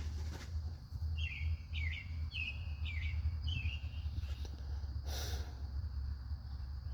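A small bird chirping in short repeated notes, thickest in the first few seconds, over a steady low hum, with a brief rustle about five seconds in.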